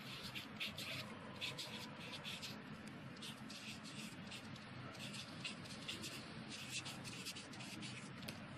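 Black marker pen writing on card paper: an irregular run of short, quick strokes as letters are drawn.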